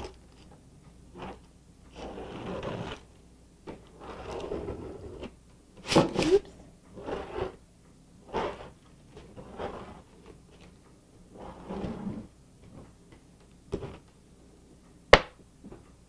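Cardboard squeegee scraping and smearing tacky glue across the back of a sheet of aluminium foil in a series of short strokes, with the foil crinkling. A single sharp click near the end.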